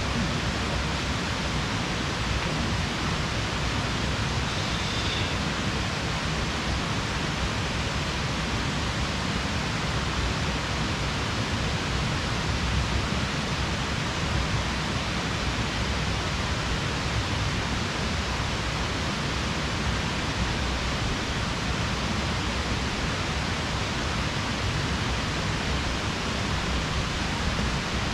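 Steady, even rushing noise at a constant level throughout, with no distinct events.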